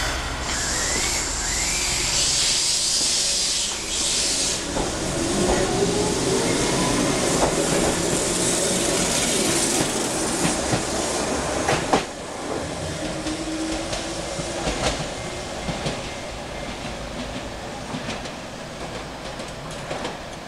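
Keihan 600-series two-car electric train pulling away from the platform. A high hiss comes in the first few seconds, then the motor whine rises as it speeds up, and the wheels click over the rail joints as the cars pass. The sound fades away over the last several seconds.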